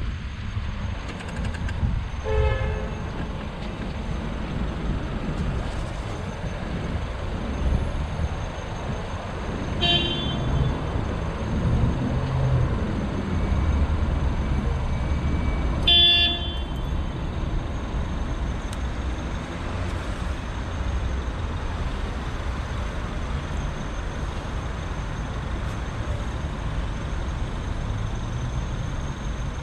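City street traffic rumbling steadily from a moving bicycle, with three brief high horn-like toots about two, ten and sixteen seconds in, the last one the loudest.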